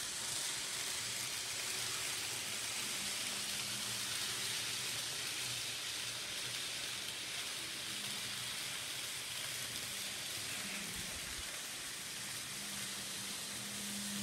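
Steady hiss with a faint low hum from an N scale model train running on the layout's track; the hum grows stronger near the end as the train passes close.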